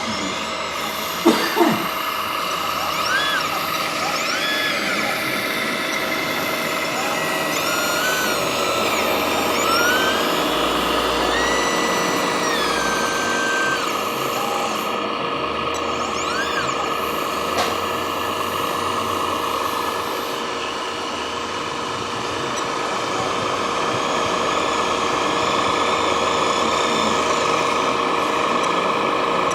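Electric motors and hydraulic pumps of radio-controlled model construction machines whining, with several short whines that rise, hold and fall back as the models are worked, and a few sharp clicks about a second in.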